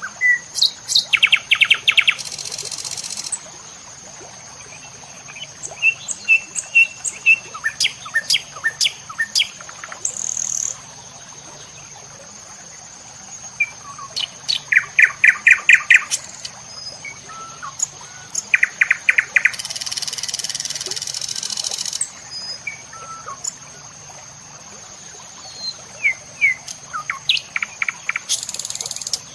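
Songbirds chirping and calling, with several fast trills of rapid notes, over a steady high-pitched whine and a few short high buzzes.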